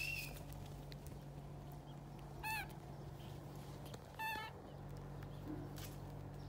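Baby monkey giving short, high-pitched calls: one right at the start, a falling call about two and a half seconds in, and another about four seconds in, over a steady low hum.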